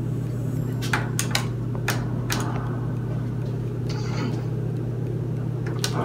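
A steady low hum, most likely the bathroom's ceiling exhaust fan, runs throughout. Over it come a scatter of sharp knocks and clunks from the wooden folding attic ladder as it is handled and weighted, several in the first half and one more near the end.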